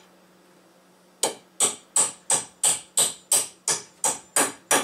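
Claw hammer tapping a push-on speed nut onto the end of a cart axle to lock the wheel on: a steady run of sharp taps, about three a second, starting about a second in.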